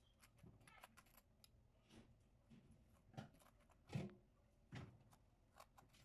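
Faint taps and scrapes of a metal spoon spreading garlic butter onto slices of bread on a baking tray, with a few soft knocks, the loudest about four seconds in.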